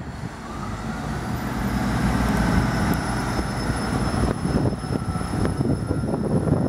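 Class 159 diesel multiple unit pulling away under power, its underfloor Cummins diesel engines running hard as it accelerates past. It gets louder over the first two seconds and then holds steady, with a high whine coming in a couple of seconds in.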